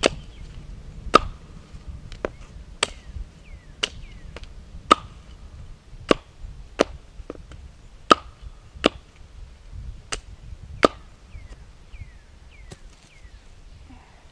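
Wood being chopped: about a dozen sharp strikes, roughly one a second, some followed by a brief ring.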